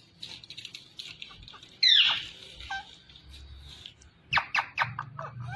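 Green parrot calling: one loud squawk sliding down in pitch about two seconds in, then a quick run of about five short calls, each sliding down, near the end.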